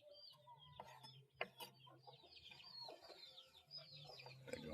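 Faint clucking and calling of farmyard chickens, many short high calls one after another.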